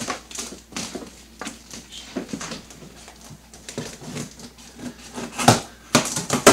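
Cardboard and packing tape being cut and pulled at the top of a taped shipping box, as irregular scratching, rustling and small clicks. A few louder cracks and rips come near the end as the box opens.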